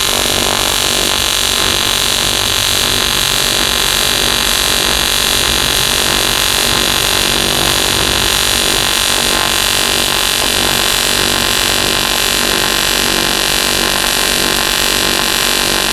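AC TIG arc from an AHP AlphaTIG 200 welder running a bead on aluminum, pulsing at 100 pulses a second: a steady, unbroken buzz.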